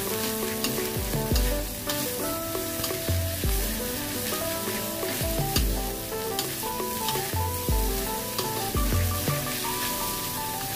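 Rice sizzling in a stainless-steel wok while a metal spatula stirs and tosses it, scraping against the wok again and again. Background music with bass notes plays underneath.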